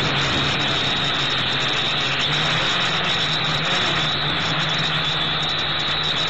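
GPToys Aviax F2C quadcopter's motors and propellers whining steadily, heard from the drone's own onboard camera, mixed with wind rush.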